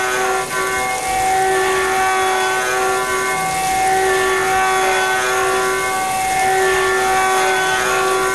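High-speed spindle of a Centroid A590 5-axis CNC porting machine running with a steady whine over a hiss, the whine swelling and fading every couple of seconds.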